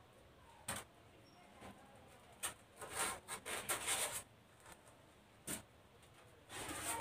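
Sheets of thermocol (polystyrene foam) being handled and laid on the floor, rubbing and scraping in a few short bursts with a couple of sharp clicks.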